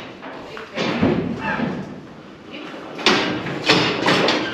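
Metal gates and bars of a cattle handling crush banging and clattering as bullocks are moved through it: a knock about a second in, then a cluster of sharp clangs about three to four seconds in.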